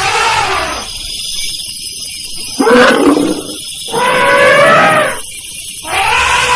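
Elephant trumpeting: a series of about four loud calls, each arching up and down in pitch, with short gaps between them and the loudest about three seconds in.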